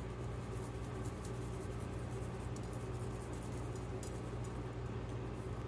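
Steady low hum of the Nuwave Brio air fryer oven running as it preheats to 400 degrees, with faint, scattered light ticks and scratches as seasoning is sprinkled onto raw ribeye steaks on a plate.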